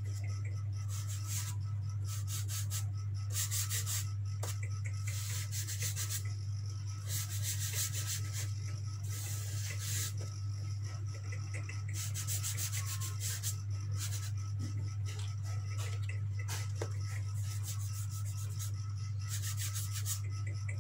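Soft pastel stick scratching back and forth on drawing paper in runs of quick strokes with short pauses, over a steady low hum.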